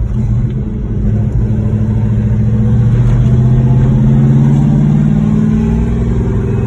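1968 Pontiac GTO's 400 V8 pulling under way, its pitch rising steadily for several seconds as the car accelerates, then dropping about six seconds in.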